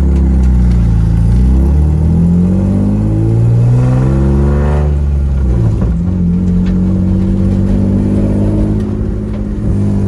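BMW E36 328i's straight-six accelerating through a straight-piped exhaust with a single 18-inch glass pack, loud. The pitch climbs for about five seconds, drops sharply at a gear change, then climbs again more slowly.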